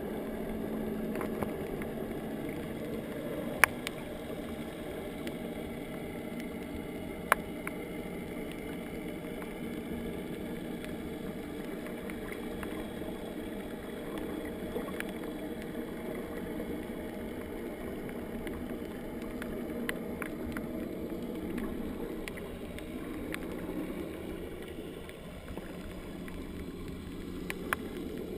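Muffled underwater sound picked up by a GoPro in its waterproof housing: a steady low rumble of moving water, with two sharp clicks about four and seven seconds in.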